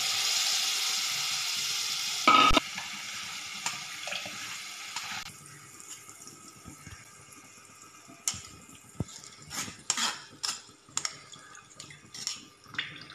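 Tamarind-and-tomato water poured through a steel mesh strainer into a clay pot, splashing steadily for about two seconds and ending in a metal clank, then trickling off about five seconds in. In the later half a steel spoon scrapes and taps against the strainer mesh in short sharp strokes, pressing the pulp through.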